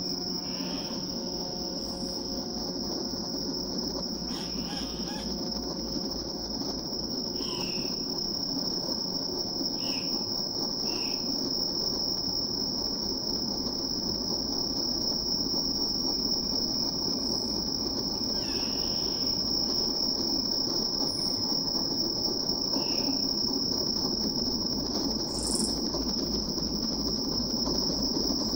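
Experimental electro-acoustic piece built from field recordings and synthesis: a steady high-pitched tone like a cricket chorus, with scattered short chirps and a dense low rushing haze beneath that slowly grows louder.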